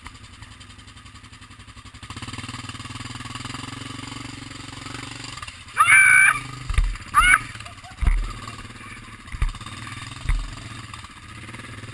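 Suzuki KingQuad ATV engine running at low revs, picking up about two seconds in as the quad crawls up a rocky creek bed, with four heavy thumps of the machine knocking over rocks in the second half. Two short loud yells cut in about six and seven seconds in.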